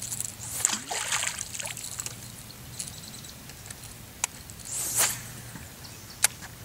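Water sloshing and trickling against a bass boat's hull while a lure is worked on a fishing rod. There is a steady low hum under it, two sharp clicks near 4 and 6 seconds, and a brief swish about five seconds in.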